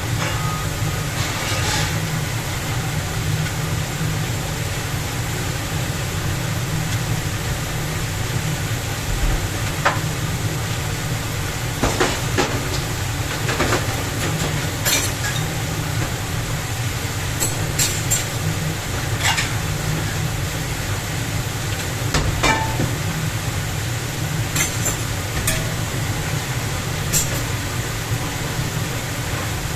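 Large commercial restaurant dishwasher running: a steady low motor hum under a hiss of spraying water, with sharp clinks every few seconds.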